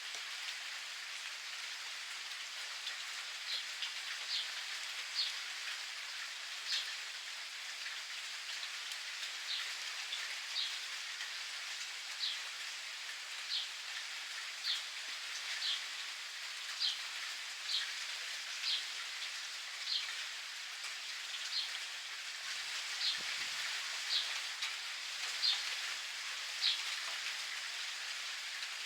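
Steady rain pattering, with a bird giving short chirps over it, repeated about once a second from a few seconds in.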